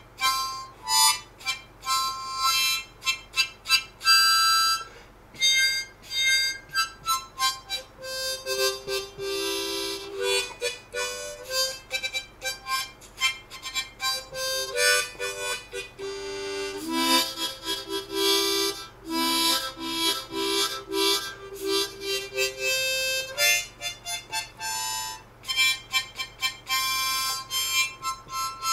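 Background instrumental music led by a harmonica playing quick, rhythmic notes.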